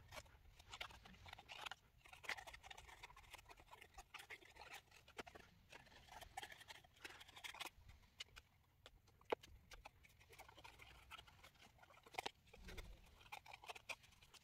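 Scissors cutting paper: faint, irregular snips and paper rustling, with one sharper click about nine seconds in.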